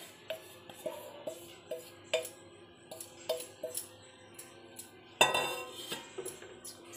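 Wooden spatula scraping and knocking a powdery cashew mixture out of a steel bowl into a nonstick pan: a string of light knocks and clinks, with a louder ringing metallic clang about five seconds in.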